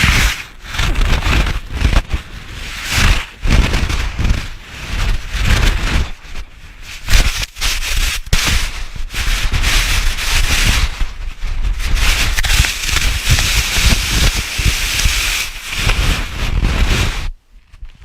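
Loud, rough scraping and rushing of snow against the helmet camera, surging in waves with heavy buffeting on the microphone, then cutting off suddenly near the end.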